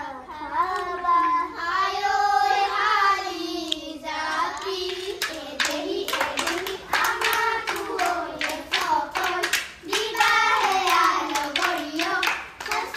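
A child's voice singing. From about five seconds in, rapid hand claps accompany the song.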